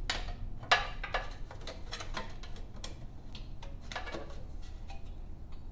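Sheet-metal cooling shroud being fitted by hand over a Kohler engine's cylinder head: a string of light metal knocks, clanks and short scrapes, the sharpest knock just under a second in.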